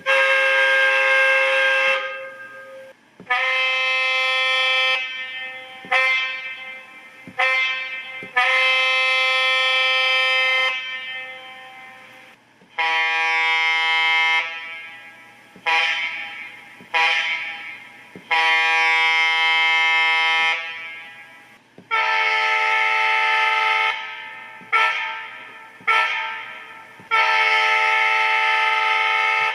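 Synthesised multi-chime diesel locomotive air horn from a TCS WOWSound v4 DCC sound decoder, sounding a run of long and short blasts. The horn chord changes to a different horn about 13 seconds in and again about 22 seconds in.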